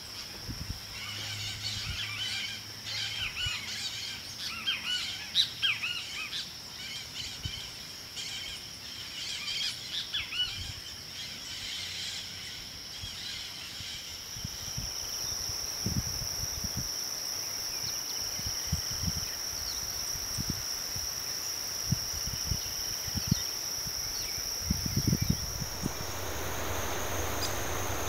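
Many tropical forest birds chirping and calling over a steady high insect drone. The bird calls thin out about halfway through while the insect drone carries on and grows louder. A few low thumps follow, and a rushing hiss comes in near the end.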